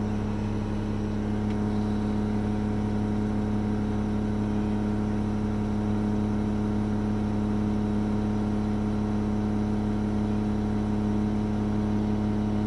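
Front-load garbage truck's engine running steadily at a low, even speed, heard from inside the cab.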